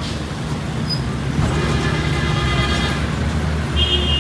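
Street traffic: vehicle engines running steadily, with a horn sounding in the second half.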